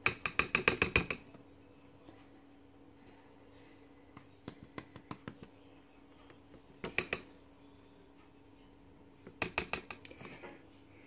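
A spoon tapping rapidly on a raw eggshell to chip a small hole in it: quick runs of light clicks, the longest in the first second and again near the end, with shorter ones in between.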